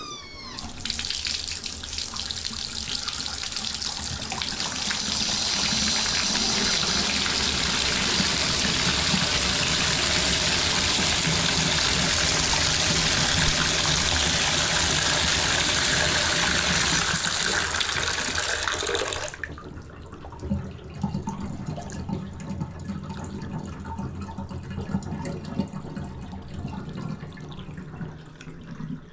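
Faucet running full into a basin to test the drain, a steady rush of water. It shuts off suddenly about two-thirds of the way through, leaving a quieter low rumble of the water draining away, with a few knocks. The drain is flowing freely.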